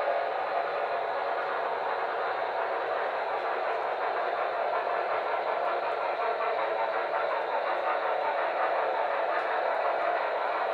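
HO-scale model freight cars and cabooses rolling past on the track: a steady rolling noise of many small metal wheels on the rails, even throughout.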